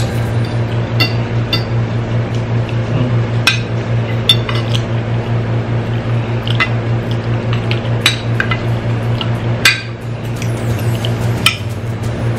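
Metal spoon and fork clinking and scraping on a ceramic plate while mixing and scooping rice and beef stew, with soft wet eating sounds. About ten sharp clinks come at uneven intervals over a steady low hum.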